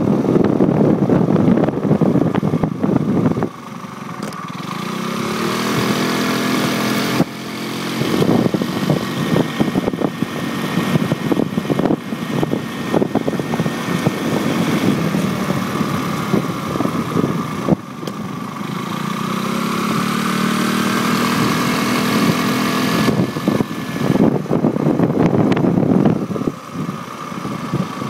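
Motorcycle engine heard from a handlebar-mounted camera. Wind buffets the microphone at the start and near the end. In between, the engine note climbs twice as the bike accelerates.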